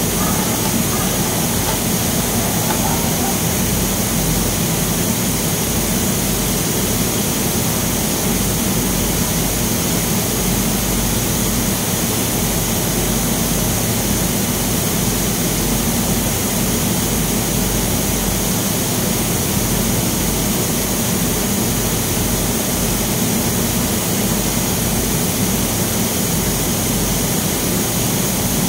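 Steady, loud drone of industrial machinery: a constant rush of air-like noise over a low hum, unchanging throughout.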